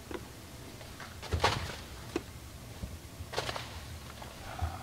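Snow being scraped off a camper's roof: two short scraping swishes about two seconds apart, with a few faint clicks.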